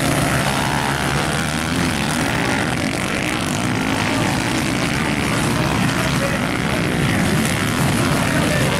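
Several velocross motorcycles in the Honda CG class, small four-stroke single-cylinder engines, running and revving together as they race round the dirt track. The engine sound is continuous and loud.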